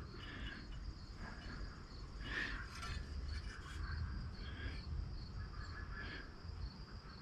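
Faint, insect-like chirping in a fast, even pulse throughout, with a few soft rubs and knocks from a chainsaw crankcase half being handled.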